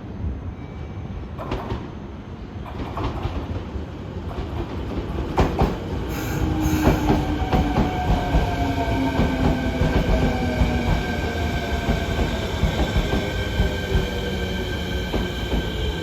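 Fukuoka City Subway 1000N-series train running at a station, its jet-engine-like whine over the rumble of the cars. The train grows louder from a few seconds in, with a few sharp clicks. From about six seconds in, tones fall slowly in pitch as the train slows, with high steady whining above.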